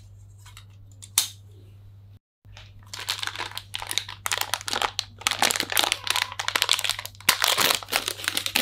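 Plastic wrapping of a WD Red 4TB hard drive crinkling and tearing as it is pulled open by hand: dense, irregular crackling that starts just under three seconds in and keeps going, after a single click about a second in.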